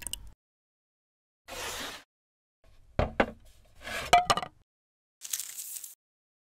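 Separate short kitchen sounds: a knife slicing down onto a wooden cutting board, then a frying pan knocking and clanking with a brief ring as it is set onto a portable gas stove's grate. A short hiss follows near the end.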